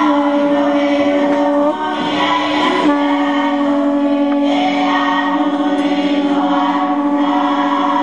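A chanter's voice holding one long, steady note in a traditional Polynesian chant. It breaks off briefly about two seconds in, then holds again, wavering slightly near the end.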